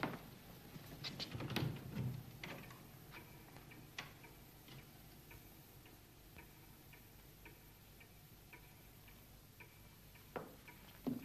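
A clock ticking faintly and evenly, about twice a second, in a quiet room. There are a few knocks and rustles in the first couple of seconds and two sharp thumps near the end.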